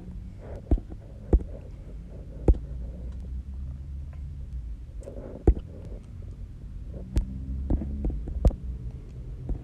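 Steady low hum, with about seven sharp clicks or knocks scattered irregularly through it.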